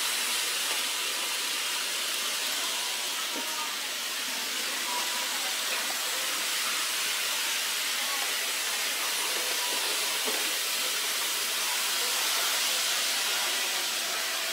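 Steady hissing running noise of a model railway layout in operation: small model trains rolling on their tracks.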